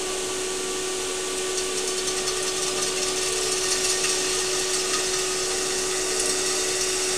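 Aluminium pot blank spinning on a metal-spinning lathe, the machine running with a steady hum while a cutting tool shaves metal from the spinning part. A high, hissing scrape from the cut grows louder about a second and a half in.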